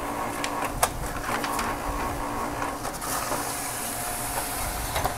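HP LaserJet Pro MFP M225dw laser printer running a test copy: its motors and paper feed whir steadily with a few sharp clicks, and a steady high hiss joins about three seconds in. The fuser has just been fitted with a new sleeve.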